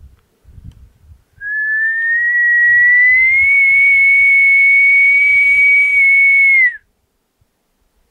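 Elk bugle: one long whistling note that starts about a second and a half in, rises slightly, holds high and breathy for about five seconds, then drops and cuts off.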